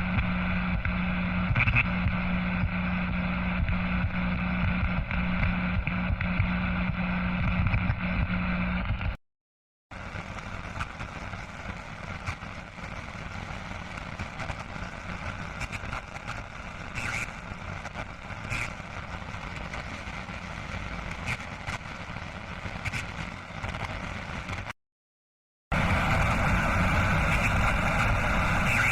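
Television static: a steady hiss of white noise, played as three separate clips with short silences between them. The first has a steady low buzz under the hiss, the second is quieter with scattered crackles, and the third is loud again.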